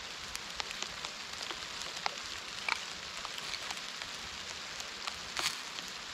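Small fire of wet, frozen pine needles and twigs crackling and hissing: a steady hiss broken by scattered sharp pops, the loudest near the end. The hiss comes from the ice-coated needles, which catch poorly.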